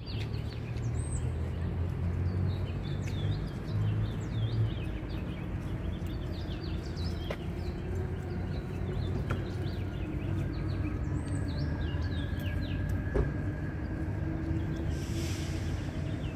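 Many birds chirping in short rising and falling calls over a steady low rumble of city traffic, with a brief hiss near the end.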